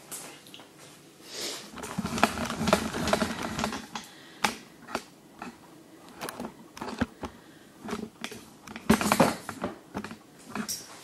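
Irregular clicks, knocks and rustles of things being handled, with longer rustling stretches about two seconds in and again near the end.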